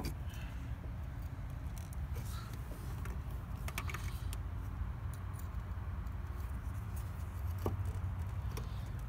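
Small scattered clicks and rattles of multimeter test leads and probes being handled and fitted to a wiring connector, over a steady low background rumble.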